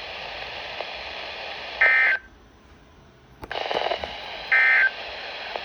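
Two short buzzy digital data bursts from a NOAA Weather Radio broadcast, the SAME end-of-message codes that close a warning, over steady radio hiss. Between the bursts the hiss drops out for about a second and comes back with a click.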